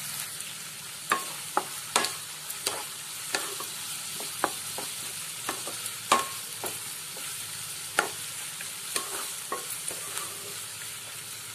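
Sliced onions sizzling in mustard oil in a nonstick kadai over a medium flame, with a spatula stirring them and knocking against the pan at irregular intervals, the loudest knock about halfway through.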